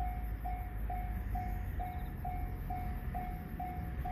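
Railway level-crossing warning bell ringing, an even, high ding a little over twice a second, over a steady low rumble.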